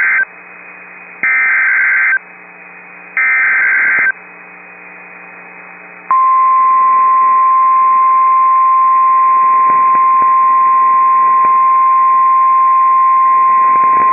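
NOAA Weather Radio Emergency Alert System tones for a tornado warning. First the end of one burst of screechy SAME digital header data, then two more one-second bursts about a second apart, with faint radio hiss between them. About six seconds in, the single steady warning alarm tone starts and holds.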